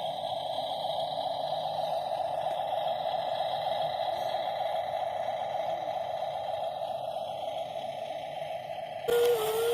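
WLtoys 16800 RC metal excavator's small electric drive motors and gearing running with a steady whirring. Near the end it changes abruptly to a pitched motor whine that steps up and down as the controls are worked.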